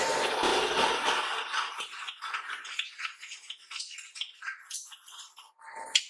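Steel LPG cylinder half turning against the rollers of an edge-shaping machine: a loud metal-on-metal scraping hiss that fades after the first second or two into scattered scrapes and clicks, with a short louder scrape near the end.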